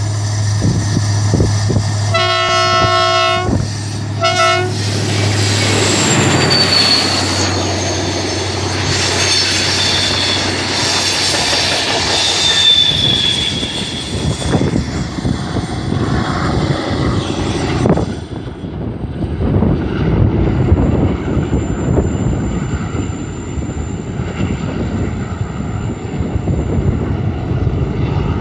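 A TCDD DE 24000-class diesel-electric locomotive sounds its multi-tone horn, one longer blast about two seconds in and a short one just after. The regional passenger train then runs past, its wheels squealing on the tight curve. The clatter of the coaches' wheels on the rails fades as they go away.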